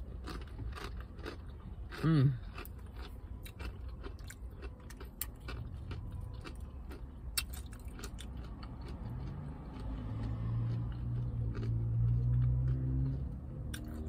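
A person chewing a mouthful of food, with small wet clicks and lip smacks throughout and a short appreciative 'mmm' about two seconds in. A low steady hum comes in during the second half.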